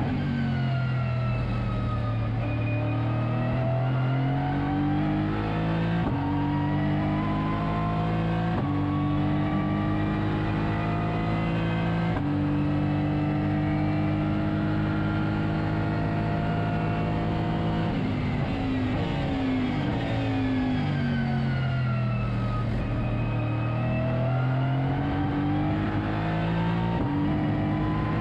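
Aston Martin Vantage GT3's twin-turbo V8 heard from inside the cockpit at racing speed. The revs fall at the start, climb through several upshifts and hold steady for a few seconds past the middle. They fall again as the car slows, then climb once more near the end.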